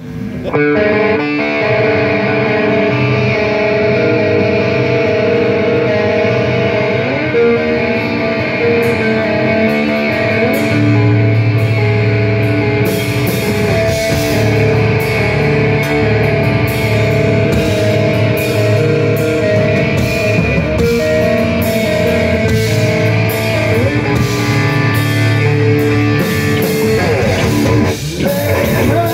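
Live hard rock band playing: a distorted electric guitar riff, with drums coming in about nine seconds in and a full cymbal-heavy beat from about thirteen seconds.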